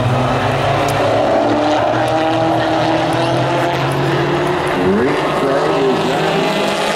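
Pro4 race trucks' engines running hard on a short oval track. Several engine notes overlap, and their pitch dips and rises again about five seconds in as trucks pass and go back on the throttle.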